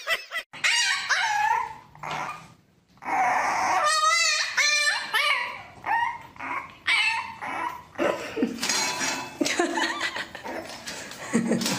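Dogs whining and yipping. A few short calls come first, then after a brief break a puppy gives a string of short rising-and-falling whines and yips, with a fast wavering one about four seconds in.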